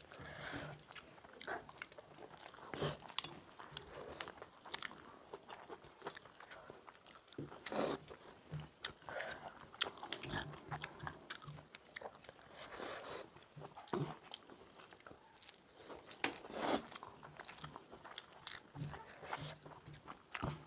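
Two people eating rice and curry with their hands: chewing and biting with irregular, crunchy mouth sounds, and fingers mixing food against steel plates.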